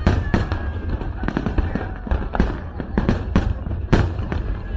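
Aerial fireworks bursting in rapid, irregular succession: a continuous barrage of sharp bangs and crackles, several per second.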